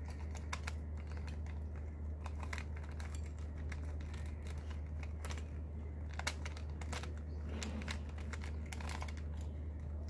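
Plastic clicking of a 3x3 Rubik's Cube's layers being turned by hand, a quick, irregular run of small clicks. The turns carry out the last-layer edge permutation algorithm that finishes the solve.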